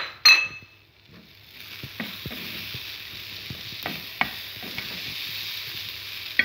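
Masoor dal with onion and green chilies frying in oil in an aluminium pot, stirred with a wooden spoon: a steady sizzle that sets in about a second and a half in, with the spoon scraping and tapping against the pot. Two sharp knocks at the very start are the loudest sounds.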